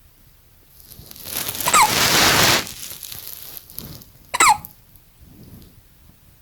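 Newborn baby hiccuping: two short, squeaky hiccups with falling pitch, about two and a half seconds apart. The first is half-buried in a loud burst of noise that lasts about two seconds.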